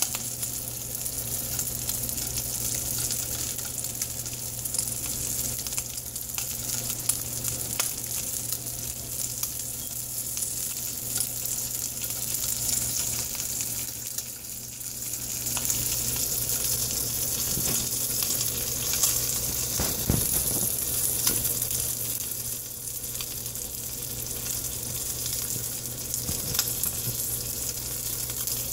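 Bacon wrapped around a grilled cheese sandwich sizzling and crackling in hot bacon grease in a frying pan, with scattered small pops over a steady low hum.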